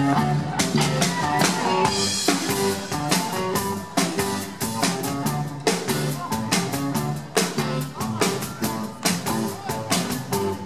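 Live band playing an instrumental passage: hollow-body electric guitar, electric bass and drum kit, the drums keeping a steady beat.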